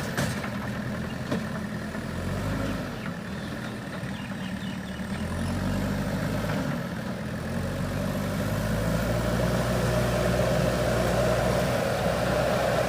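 JCB backhoe loader's diesel engine running, easing off for a few seconds and then picking up again from about six seconds in.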